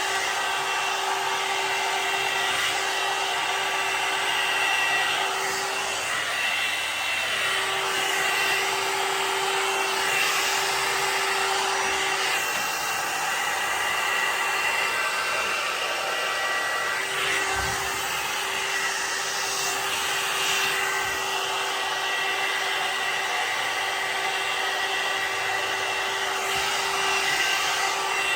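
Hot air brush hair dryer running with a steady blowing rush and a motor hum. The hum drops away and comes back a few times.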